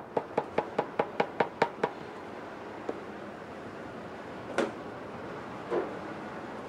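A spatula knocked rapidly against a blender jar, about nine quick knocks in under two seconds, to shake off thick, syrupy blended rice cream. A few single knocks follow, spaced well apart.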